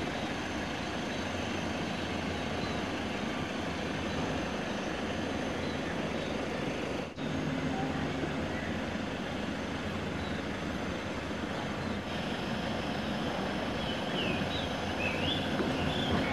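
Steady outdoor background noise, an even hiss with a faint low hum, cut off for an instant about seven seconds in. A few short high chirps come near the end.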